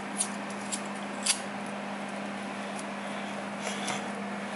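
Items being handled at an open refrigerator: a few light clicks and taps, three in the first second and a half and a couple more near the end, over a steady low hum.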